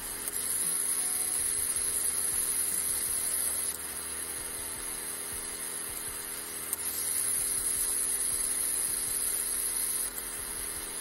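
Small yellow plastic DC gear motor whirring as a push switch turns it on. It runs for about three and a half seconds, stops, then runs again for about three seconds near the end.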